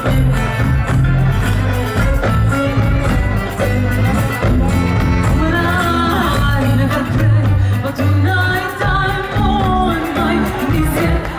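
A band playing live: a bending melody line with singing over held bass notes and steady percussion.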